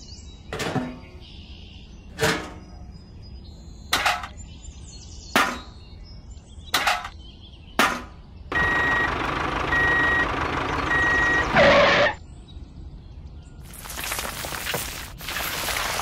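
Spoonfuls of sand and cement tipped one at a time into a miniature cement mixer's tin-can drum, six short pours in the first half. Then a toy dump truck runs for about three seconds with three reversing beeps, and near the end gravel slides out of its tipping bed with a rushing rattle.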